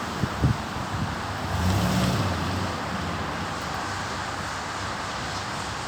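Steady road traffic with wind on the microphone, a few low wind thumps in the first half second and a vehicle swelling past about two seconds in.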